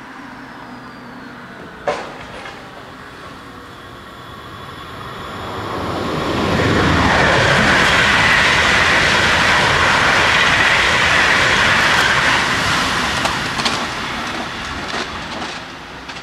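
Electric multiple-unit passenger train passing over a level crossing: the rush of wheels on rail swells from about five seconds in, stays loud for some six seconds, then fades away. A single sharp click comes about two seconds in.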